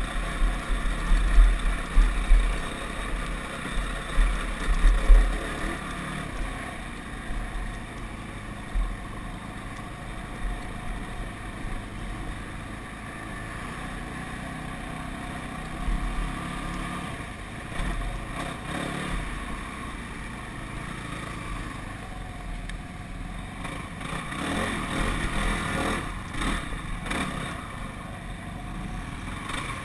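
ATV engine running steadily while riding along a rough dirt trail. Heavy low thumping on the microphone in the first five or six seconds is louder than the engine.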